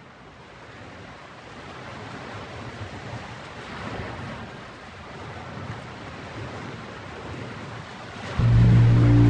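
Steady wash of ocean surf, slowly growing louder; about eight seconds in, loud music cuts in.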